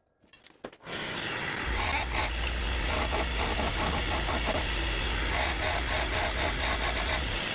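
Wood lathe running, with a skew chisel cutting into the spinning mahogany to reduce its diameter. The noise starts about a second in and stops near the end.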